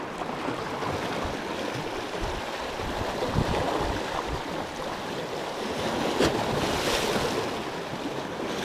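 Small sea waves washing and splashing over rocks at the waterline, rising and falling in gentle surges, with some wind noise.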